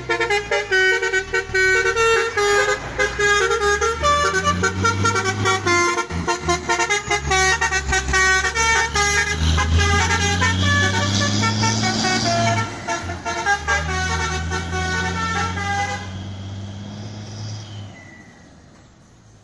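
Truck's telolet basuri multi-tone horn playing a fast melody of quickly changing notes over the rising and falling note of its diesel engine. The horn stops about three-quarters of the way through, and the engine fades away.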